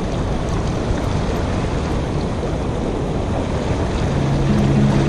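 Steady rush of rough, churning water with wind buffeting the microphone. Background music fades in about four seconds in.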